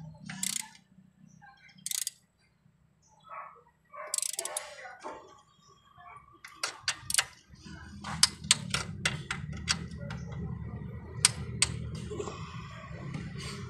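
Socket ratchet clicking in short runs as bolts on an engine's cylinder head are tightened, the clicks coming several a second in the second half. A steady low hum comes in behind them about halfway through.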